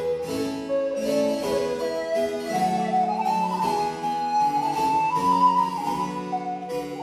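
Wooden recorder and harpsichord playing a Baroque courante: the recorder carries a sustained melody over evenly plucked harpsichord notes. The recorder line climbs in pitch through the middle and comes back down near the end.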